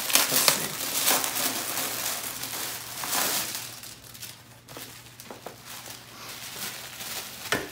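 A clear plastic bag crinkling and rustling as a folded jersey is handled and pulled out of it. The crinkling is busiest for the first three seconds or so, then turns softer with scattered rustles.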